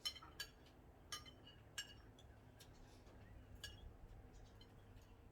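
Cutlery clinking against plates and dishes while people eat: about five light, sharp clinks, each ringing briefly, spread over the first four seconds.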